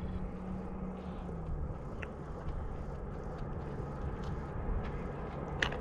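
Steady low rumble of a car heard from inside the cabin, with a few faint clicks and a sharper click near the end.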